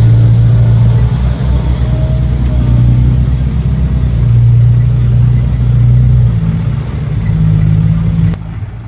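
Diesel dump truck engine running under way, a steady low drone that shifts up in pitch about six seconds in and drops sharply in level near the end.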